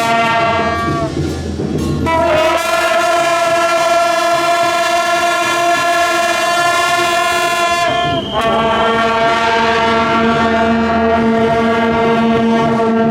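Wind instruments blowing long held notes, several pitches together, each note sagging in pitch as it ends. A short break comes about two seconds in and another about eight seconds in, after which a lower held note joins in.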